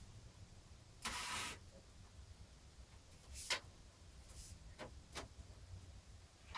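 A short scrape about a second in, then a sharp click and a few fainter clicks: metal computer-case parts and screws being handled during assembly, over a low hum.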